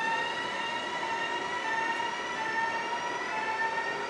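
Electric multiple-unit train pulling out of the station, its traction motors giving a whine of several tones that climbs steadily in pitch as it accelerates away.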